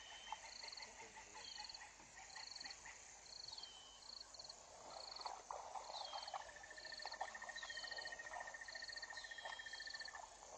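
Evening chorus of frogs and insects. A short, high, pulsed call repeats about once a second, several times with a falling whistle after it. From about six seconds in, a long steady trill joins, over a scatter of clicky calls.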